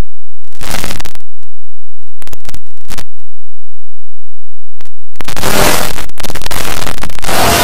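Harsh, heavily distorted and clipped digital noise from an 'effects' edit. A short burst comes about a second in, then a few brief crackles around two to three seconds, and after a gap a long harsh burst from about five seconds on.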